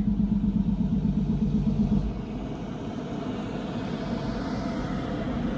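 Motor vehicle running: a steady low engine drone that drops in level about two seconds in, then continues as a rougher, steady noise.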